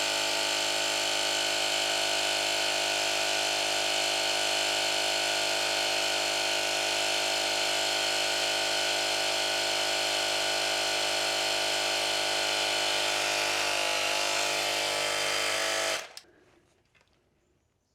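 Budget 12-volt-style mini air compressor running steadily with a buzzing motor hum, pumping a motorcycle tyre up from about 24 to about 30 psi. It cuts off suddenly about 16 seconds in.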